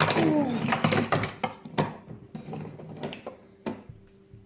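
Plastic toy trains clicking and clacking as they are pushed along and knocked together, in a string of sharp clicks and knocks that thin out and fade toward the end. A brief sliding pitched sound comes right at the start.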